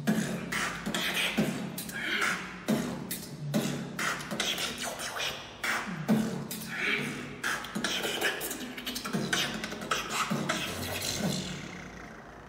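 Human beatboxing: a vocal drum beat with a low kick sound about every three quarters of a second and snare and hi-hat sounds between, fading out near the end.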